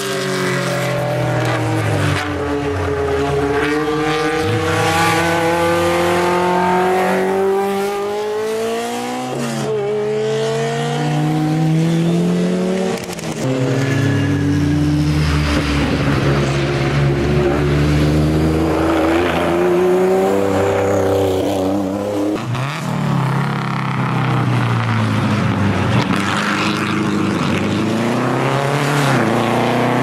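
Historic racing car engine climbing a hill at full throttle, its pitch rising through each gear and dropping sharply at the shifts, several times over. A vintage open-wheel single-seater comes into view at the bend near the end.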